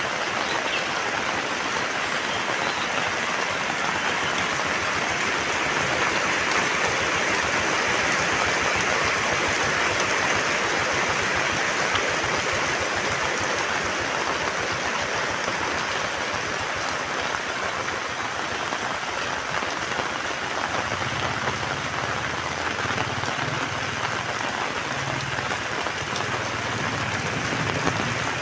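Heavy rain falling steadily, a dense even hiss. A low rumble comes and goes over the last third.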